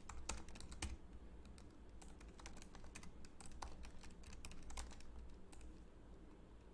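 Typing on a computer keyboard: a quiet, irregular run of key clicks as a line of code is entered.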